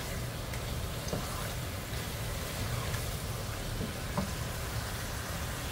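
Diced turnips frying in oil in a nonstick pan, sizzling with a steady hiss, as a spoon stirs the mixture with a few light scrapes and taps.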